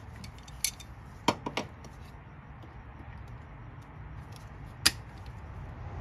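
Wire cutters working at a car battery cable, trying to split it down the middle: a few sharp metal clicks and snips, the loudest near the end.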